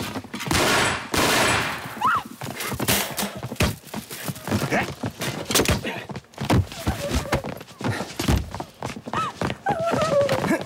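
Fight sound effects: a fast, irregular series of punches, blows and thuds, mixed with grunts and short shouts from the fighters.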